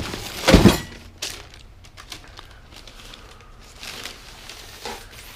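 Band saw parts and packing being handled and pulled from the shipping box: a loud clatter about half a second in and a sharp click soon after, then quieter rustling and light knocks.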